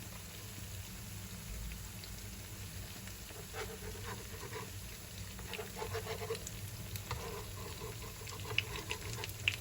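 Wheat flour, sugar and coconut milk batter frying in hot oil, sizzling with small crackles and pops that grow more frequent in the second half.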